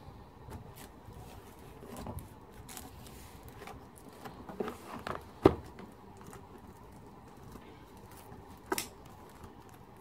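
Cardboard box being handled and opened by hand on a tiled floor: scattered light taps, scrapes and rustles, with a sharp knock about five and a half seconds in and another near nine seconds.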